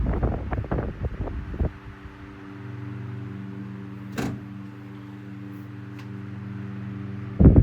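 1954 Robbins & Myers 12-inch oscillating table fan running. At first its airflow buffets the microphone. From about two seconds in, the steady hum of the motor comes through, with a single click about four seconds in. Near the end the gusty wind noise returns as the head swings back.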